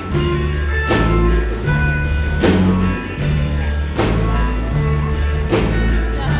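Live band playing an instrumental passage without singing: a low bass line moving in held notes, sustained higher instrument notes, and drum hits falling regularly about every one and a half seconds.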